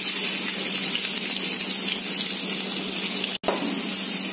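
Chopped shallots sizzling in hot coconut oil in a nonstick frying pan, a steady hiss, as the small onions start frying for a curry tempering. The sound cuts out for a split second about three and a half seconds in.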